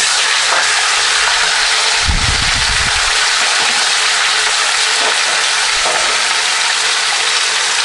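Raw pork pieces sizzling loudly in hot oil in a kazan, the steady hiss starting as the meat goes in, while a slotted spoon stirs them. A brief low rumble about two seconds in.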